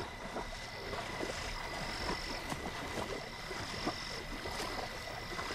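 Night-time swamp frog chorus: many frogs croaking and clicking, over a steady high-pitched call and higher calls that come and go.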